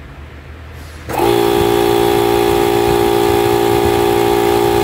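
Rewound 2 HP two-pole motor of a Motomil air compressor switched on: it starts abruptly about a second in and runs with a loud, steady whine of several pitches at once. A very strong start, which shows that the new winding and capacitor start are working.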